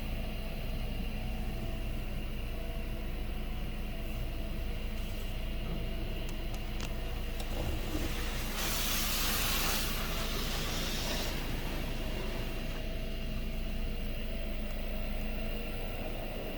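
Touchless car wash running around a car: a steady mechanical hum, then a loud hiss of spray for about three seconds around the middle.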